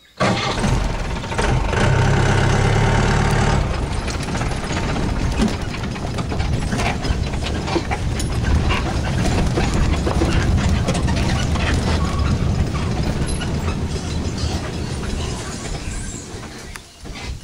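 Safari jeep running with its body rattling and knocking. A steady engine note stands out for about two seconds near the start.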